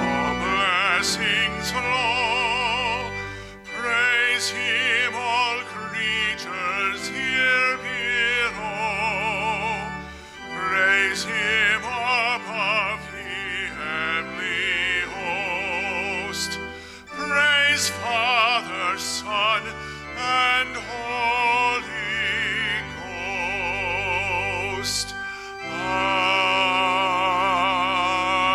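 Offertory music: a solo singer in a classical, operatic style, with wide vibrato, over instrumental accompaniment.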